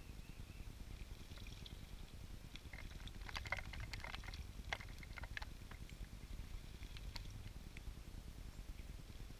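Small songbirds bathing in a shallow birdbath: a flurry of quick light splashes and water flicks as they beat their wings in the water, starting about two and a half seconds in and lasting a few seconds, with a few more splashes later. A low steady rumble sits underneath.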